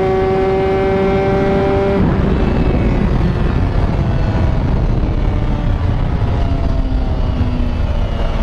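Two-stroke motorcycle engine held at high, steady revs. About two seconds in the throttle closes abruptly, leaving a loud low rushing noise and a lower engine note that slowly falls.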